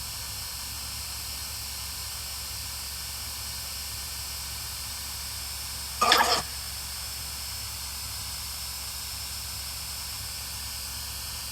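Steady hiss of the recording's background noise. About six seconds in, a brief pitched, voice-like sound lasts under half a second.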